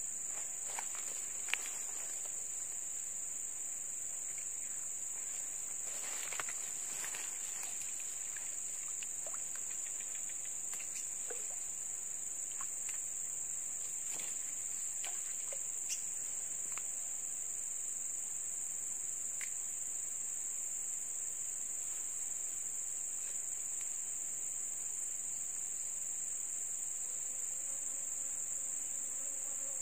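A steady, high-pitched insect chorus drones without a break, with a few faint ticks and rustles now and then.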